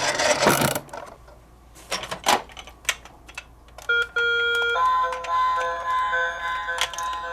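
Toy minicars rattle for about a second, a few sharp clicks follow, then an electronic toy siren starts about four seconds in: steady beeping tones that change pattern a second later and keep on.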